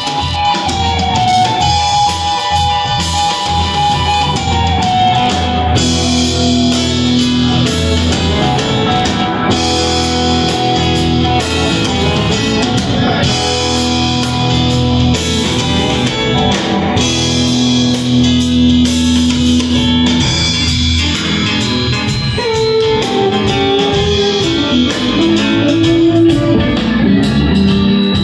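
A live rock band plays an instrumental passage with no singing: electric guitar and Hammond organ over a steady low bass.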